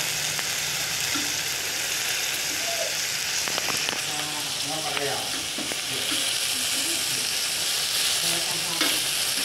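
Goat satay skewers sizzling steadily on a round perforated grill plate.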